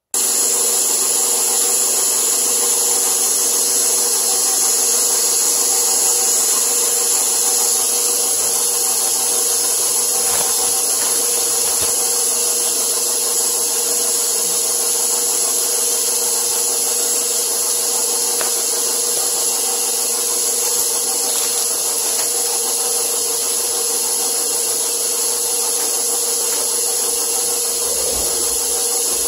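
Electric stand mixer running steadily on low speed, its dough hook turning through a wet mix of oats, milk and butter: an even motor hum with a hiss over it.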